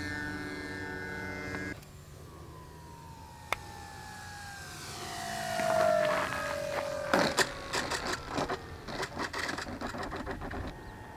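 Background music cuts off, then an RC model aerobatic plane's engine approaches and passes low, its note falling steadily in pitch and loudest as it goes by. A run of irregular crackles follows.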